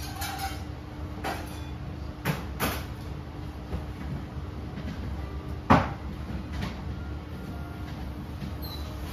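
A few light knocks and clicks of things being handled at a restaurant counter, the sharpest about six seconds in, over a steady low hum.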